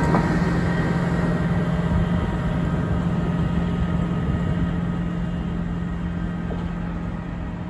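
Diesel engine of a Matisa track-maintenance machine running with a steady hum as the machine drives away along the track, fading slowly.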